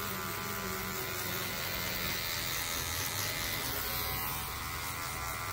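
Electric hair clipper running with a steady buzz as it cuts short hair at the back of the neck.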